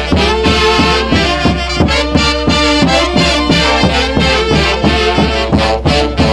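Live instrumental music from a Huancayo orquesta, with horns carrying the melody over a steady, driving beat and no singing.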